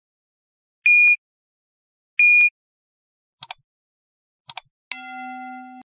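Animated-intro sound effects: two short, high, steady beeps about a second and a half apart, then two quick mouse-style clicks about a second apart, then a bright ding that rings for about a second and cuts off.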